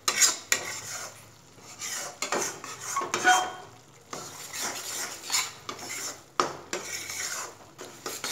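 A spatula scraping and stirring a thick mix of ghee-roasted wheat flour and melting jaggery around an aluminium kadai, in irregular strokes with short pauses. A brief squeak comes a little past three seconds in.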